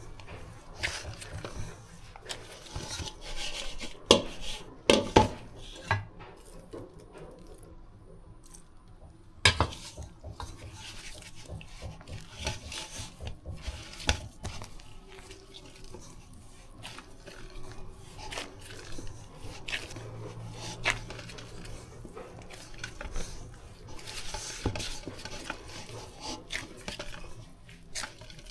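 Dumpling dough being mixed and kneaded in a bowl: scattered knocks, clinks and scrapes of the bowl and utensils, with a few louder knocks about four to five seconds in and again near ten seconds.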